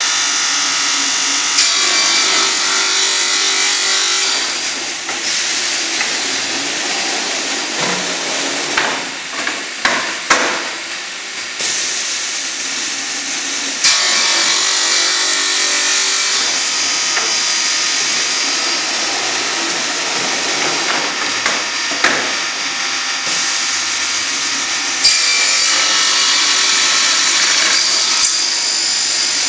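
Semi-automatic crosscut saw, an old Finnish machine rebuilt to run on air cylinders, running with its saw blades spinning while a wood panel is pulled through between the blades and cut. Several knocks and clunks come through the middle, and the noise jumps up suddenly about halfway through and again near the end.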